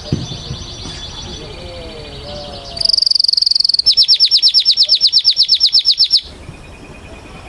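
Canary singing a series of high trills. About three seconds in comes a loud, very fast trill, followed by a slower run of repeated notes at about nine a second that stops abruptly a little after six seconds.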